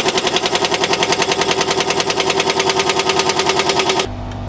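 Pneumatic impact wrench hammering rapidly on a nut of an MCI MC9 bus's front air brake chamber, trying to break it loose. The hammering cuts off sharply about four seconds in.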